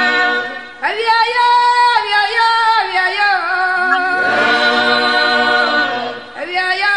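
Unaccompanied voices singing as a choir in long held phrases, with no instruments. The singing dips briefly before a new phrase comes in about a second in, and again near the end.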